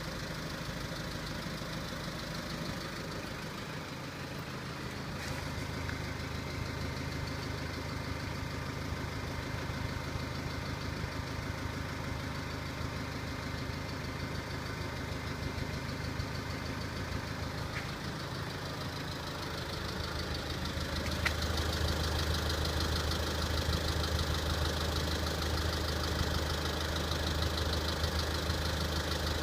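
VW Passat B6's 2.0 TDI CBAB diesel engine idling cold, with a ringing knock that the owner cannot place. It gets louder with a deeper hum about 21 seconds in.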